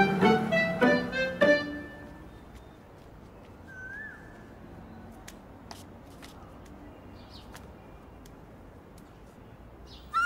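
Film background music: a quick staccato phrase of plucked and bowed strings that stops about a second and a half in, leaving a quiet stretch with a few soft footstep taps. A loud held flute-like note starts at the very end.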